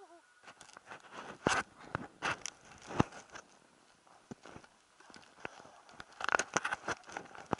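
Handling noise on a handheld camera: irregular knocks and rustles of a hand and jacket rubbing against it, with one sharp knock about three seconds in and a quick run of them near the end.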